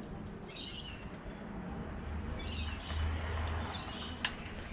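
Small birds chirping in short bursts, twice, with a single sharp click about four seconds in.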